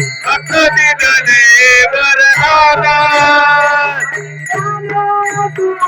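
An elderly woman singing a devotional bhajan solo, holding long notes with bends in pitch.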